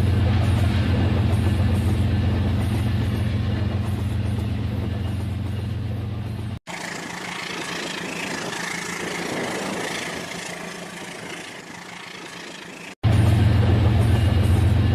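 Rail King toy train set running, a steady low motor hum. About six and a half seconds in the sound cuts suddenly to a quieter stretch without the hum, and the hum cuts back in near the end.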